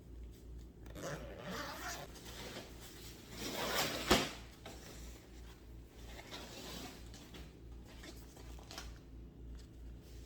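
Rustling and scraping of a shipping package being opened by hand, with a louder rasping stretch that ends in a sharp click about four seconds in.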